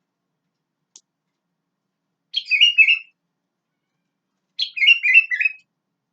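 Sooty-headed bulbul (kutilang) singing two short phrases of quick notes, about two seconds apart. A faint tick comes about a second in.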